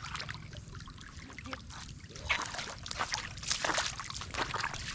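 Shallow running water trickling and sloshing, with a run of louder splashes from about two seconds in.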